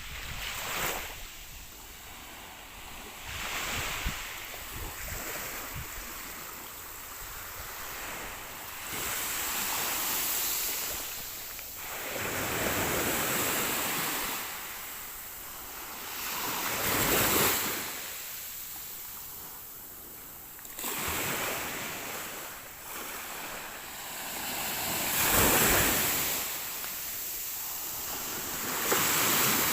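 Ocean waves breaking and washing up the shore, the surf swelling and falling every few seconds, with some wind on the microphone.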